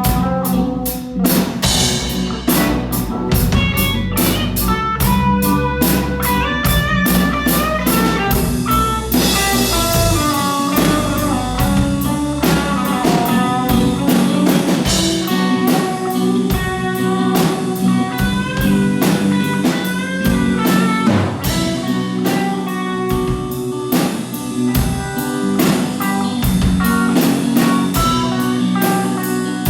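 A rock band playing a song together: guitar and drum kit over low bass notes, with a steady beat of drum hits.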